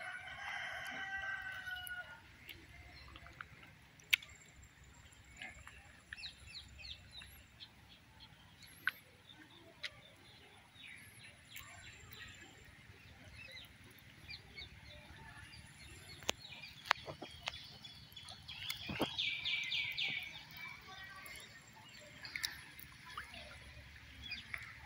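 A rooster crows once at the start, one call with a pitch that falls slightly at the end. Small water splashes and clicks follow as the cast net and the wader move through the river, and a rapid, high chattering call comes about three quarters of the way through.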